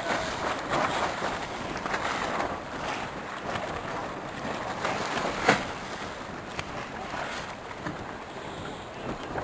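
Wind buffeting the microphone over water splashing against a boat's hull, in uneven gusts, with a single sharp knock about halfway through.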